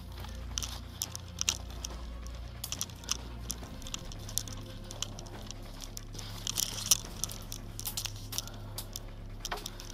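Footsteps and body brushing through dry grass and brush: an irregular run of crackles and rustles, thicker a little past the middle, over a steady low hum.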